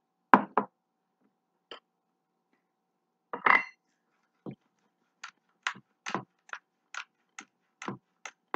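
Stainless steel pepper mill grinding peppercorns, twisted by hand in a run of short crunching clicks, about two a second, in the second half. Before that, two sharp knocks near the start and a louder clatter about three and a half seconds in, as the mill is handled and its cap set down.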